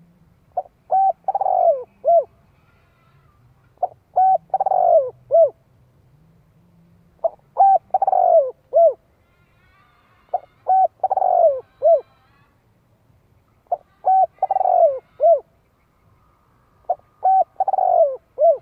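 Spotted dove cooing its repeated call, six phrases about three seconds apart. Each phrase is two short coos, a longer falling coo and a short final note.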